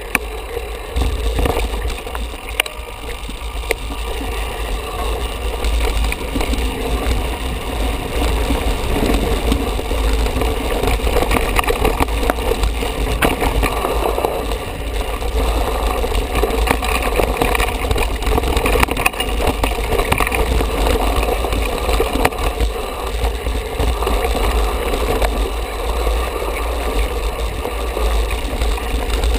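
Mountain bike riding down a rough dirt and stony forest trail: steady wind rumble over the microphone, with tyre noise on the dirt and frequent small rattles and knocks from the bike over stones and roots.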